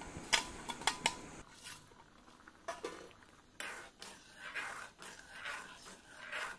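A steel plate and a metal spatula clink lightly against a cooking pot a few times, then the spatula stirs and scrapes through the boiling liquid in the pot.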